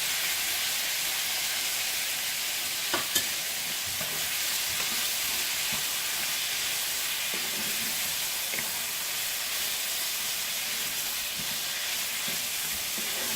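Chicken and vegetables in enchilada sauce sizzling steadily in a frying pan, with two sharp clicks about three seconds in and a few faint knocks later.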